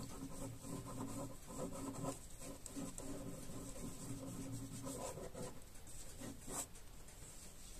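Pen scribbling on paper: a quick run of short rubbing strokes as dense loops and hatching are drawn.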